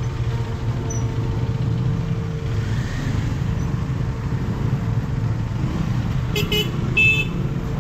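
Motorcycle engine idling with a steady low hum. Near the end, a vehicle horn gives two short beeps about half a second apart.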